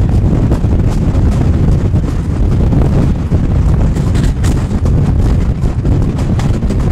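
Loud, gusting wind buffeting the microphone, a steady low rumble with faint scattered clicks above it.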